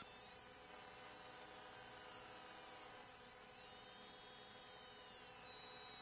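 Faint electrical hum and whine on the recording: steady low tones under high thin tones that glide up and down slowly, stepping down near the end.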